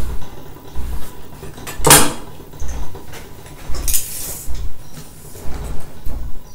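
Hand tools clinking and being set down on wooden boards, with a sharp metal clank about two seconds in, a brief rustle about four seconds in, and dull knocks of boards and hands on the worktable throughout.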